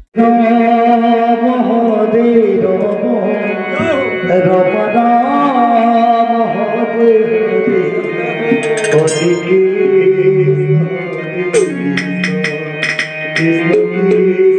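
Live devotional kirtan music: sustained keyboard or harmonium notes carrying a slow melody, with hand-drum strokes coming in from about eight seconds.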